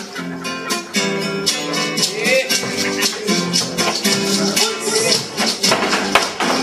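Live Argentine folk music: acoustic guitar playing with sharp, rapid percussive strikes in rhythm.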